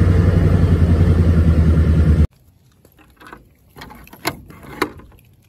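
A loud engine-like rumble with a steady low drone and a hissy layer over it, cut off abruptly about two seconds in. Then quieter handling noise with a few sharp clicks and knocks as a wooden gate's metal latch is worked.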